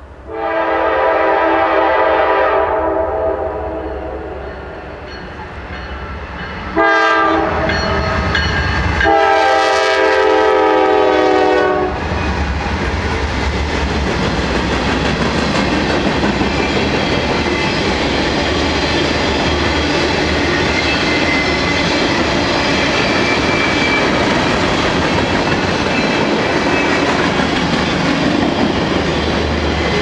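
Freight train led by GE Dash 9 diesel locomotives (C40-9W and C40-9) sounding its horn: a long blast at the start, then more blasts running into each other from about 7 to 12 seconds in. After that comes the steady rumble and clatter of the train's tank cars and covered hoppers rolling past.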